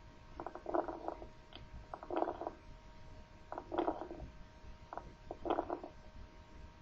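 Stethoscope recording of lung sounds with subcrepitant rales (medium crackles): a burst of fine popping, like bubbles bursting, with each breath, four bursts about a second and a half apart over a faint steady hum. These are typical of secretions or inflammation in the terminal bronchioles, a sign of lung consolidation.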